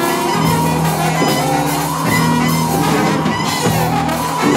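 Saxophone and electric guitar playing loud, dense free-improvised noise music, with low notes held for about a second at a time under a noisy upper layer.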